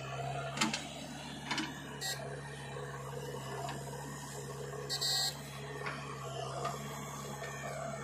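Diesel engines of a JCB 3DX backhoe loader and a tractor running with a steady low hum, with a few sharp knocks and clicks and a brief high-pitched tone about five seconds in.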